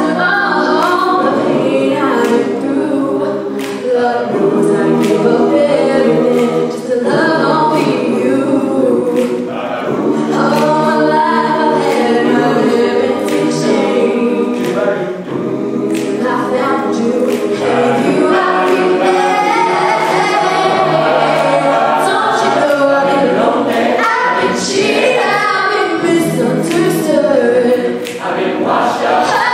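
A cappella group singing a gospel song: a female lead voice over full backing harmonies from the group, with a steady percussive beat and no instruments.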